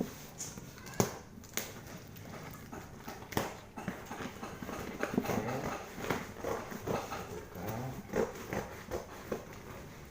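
Handling noise from unpacking a motorcycle exhaust: scattered knocks and clicks with light rustling, the sharpest knock about a second in.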